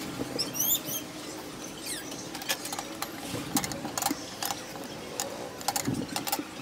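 Scattered light clicks and taps of small metal parts being handled as the cam chain tensioner and its gasket are fitted to a Honda Dio scooter engine.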